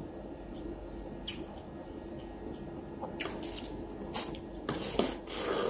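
Close-up eating sounds: a few sharp mouth clicks and smacks while chewing food eaten by hand, with a louder, hissier stretch of about a second near the end.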